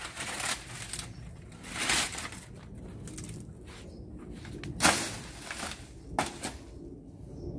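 Wooden prop poles being handled at the foot of a banana plant among dry banana leaves: irregular rustling and scraping with a few sharper knocks, the loudest about five seconds in.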